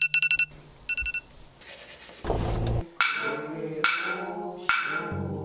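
A quick run of clicks and beeps, then percussion struck at an even pace a little under once a second, each stroke ringing briefly and fading. A steady low drone comes in near the end.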